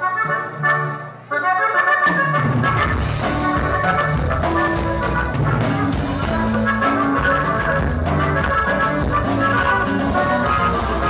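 Live norteño band playing: an accordion phrase with little underneath, then bass, drums and bajo sexto come in about a second and a half in. The full band plays on with the accordion on top.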